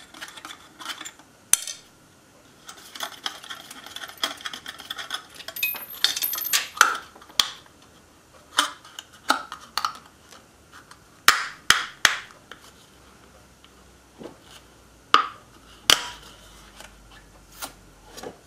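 A thin metal dam plate and tape being worked loose by hand from cured epoxy on a small engine block: irregular clicks, knocks and light metallic clinks, with some rustling and crinkling a few seconds in.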